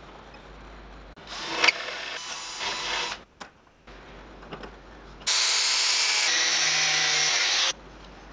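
Workshop tool noise at a metal bench vise: a scraping rattle with a sharp clack, then a steady whirring noise with a faint low hum, about two and a half seconds long, that starts and stops abruptly.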